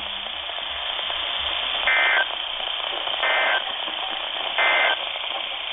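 Three short bursts of EAS digital data tones, each a warble between two steady pitches about a third of a second long, spaced about 1.3 seconds apart, from a Midland NOAA weather radio's speaker: the end-of-message (EOM) code closing a weather alert. Steady radio hiss fills the gaps.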